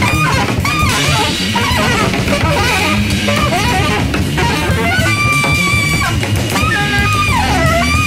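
Instrumental jazz-rock recording: a reed instrument plays a wavering lead line that settles into long held notes in the second half, over electric bass and busy drums.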